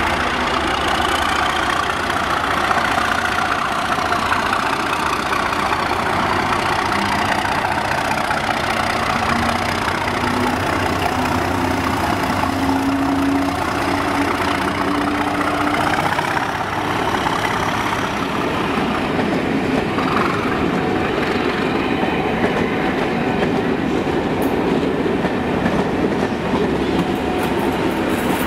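Class 37 diesel locomotive, with its English Electric V12 engine, passing close under power, its engine note rising steadily as it accelerates. After that the passenger coaches roll by with a steady rumble and wheel clatter on the rails.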